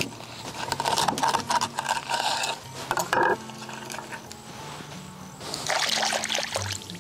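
A large knife splitting a marron (freshwater crayfish) lengthwise on a wooden chopping board: the shell cracks and crunches, with a brief loud squeak a little after three seconds in. Near the end, water splashes as the split halves are rinsed in shallow water.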